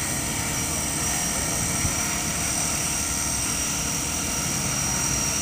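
450-size electric RC helicopter flying: a steady high-pitched whine from the motor and rotor head over constant rotor wash.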